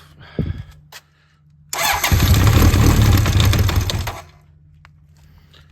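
Honda CB900F's 985cc big-bore engine on Keihin FCR33 flatslide carbs, cold with no choke, turned over on the electric starter for about two and a half seconds, then it stops without the engine running on.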